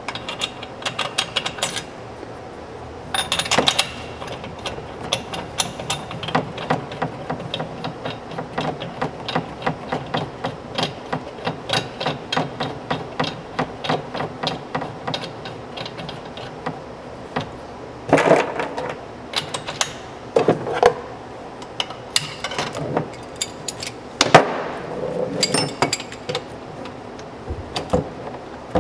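Metal hand tools clinking and clicking as a two-piece clutch puller is fitted to the stock primary clutch, with a long run of quick, regular clicks in the middle and a few louder clanks near the end.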